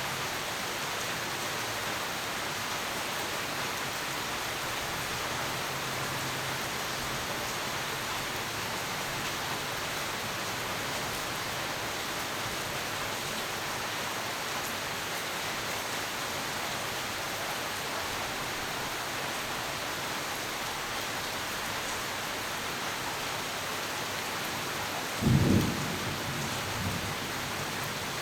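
Steady heavy rain hissing, with a short, low clap of thunder near the end, the loudest moment, followed about a second later by a fainter rumble.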